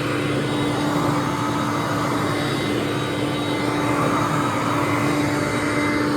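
2004 Hoover Conquest upright vacuum cleaner running steadily, its motor giving an even hum.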